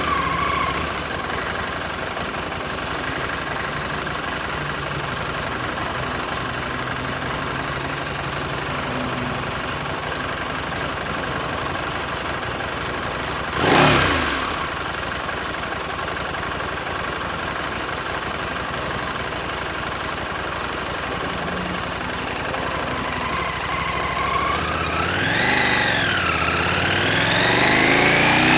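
Steady wind and road noise while riding a KTM 790 Adventure, its parallel-twin engine faintly underneath. There is a brief loud whoosh about halfway. Near the end the engine note rises, dips once and rises again as the bike accelerates.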